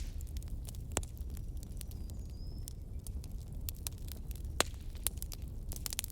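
Bonfire burning, with a steady low rumble of flames and scattered sharp crackles and pops of the wood, two of them louder, about a second in and just past the middle.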